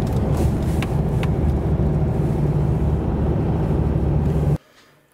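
A car driving: a steady low engine and road rumble that cuts off abruptly near the end.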